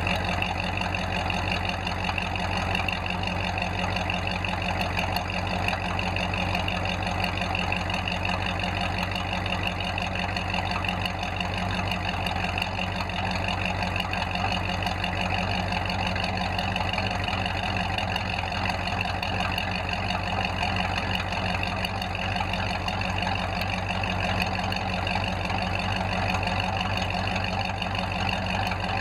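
Ford V8 idling steadily through dual tailpipes. The engine has just been started after sitting unused for a long time and is still cold, with white vapour puffing from the pipes.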